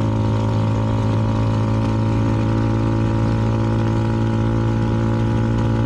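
CFMoto 300NK single-cylinder engine with a KO aftermarket exhaust, running at a steady cruise with no change in pitch. Wind noise rushes over the helmet microphone.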